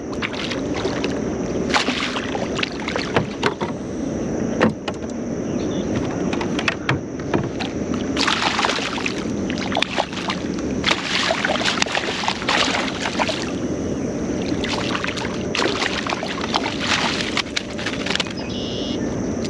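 Water splashing and sloshing against a kayak with scattered knocks and clicks as a hooked flounder is brought alongside and landed, the louder splashes bunching up in the second half.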